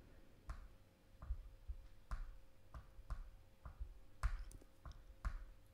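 Faint, sharp clicks of a computer mouse, about nine of them at irregular spacing, roughly one every half second, over a faint steady hum.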